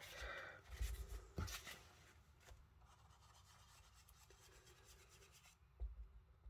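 Soft scratchy rubbing of a foam-tipped ink blending brush working ink onto card stock, with a couple of light taps, over the first two seconds; then near silence, with a light knock near the end.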